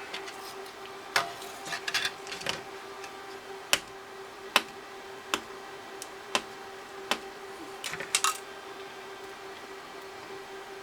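Sharp clicks and taps of small hand tools working on a calculator's ribbon cable, about one a second at uneven spacing, with a quick cluster near the end. A faint steady hum runs under them.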